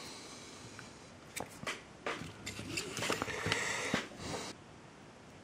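Handling noise: a few light clicks and rustles from small objects being moved, cutting off abruptly about four and a half seconds in.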